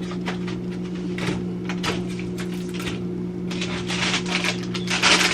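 Food containers and packages being handled and moved about in a refrigerator: a string of small clicks, knocks and rustles, getting busier and louder near the end, over a steady low hum.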